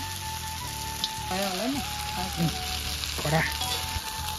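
Food frying with a steady sizzle, under background music.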